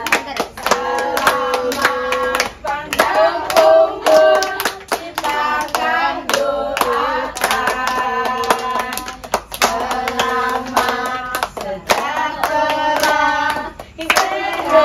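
A group of women and children singing a birthday song together, clapping their hands in a steady beat.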